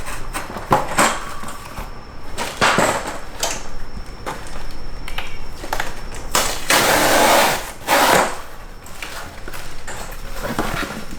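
Bird cage kit parts being handled out of their box: scattered knocks and clatter, with a longer rustle around six to seven and a half seconds in.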